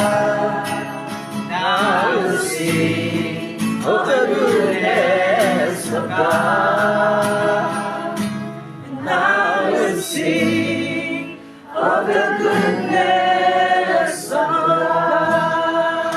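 Gospel worship music: voices singing long held notes in harmony over instrumental accompaniment, with a short drop in level a little past the middle.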